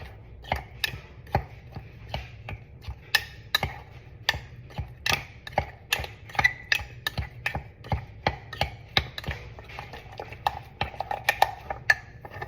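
A spoon stirring ragi mug-cake batter in a cup, clicking against the cup's sides in quick, uneven taps.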